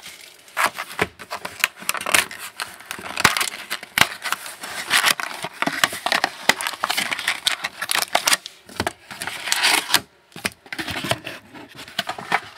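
Trading card packaging being opened and handled: wrapper crinkling and cardboard rustling with many quick small clicks and snaps.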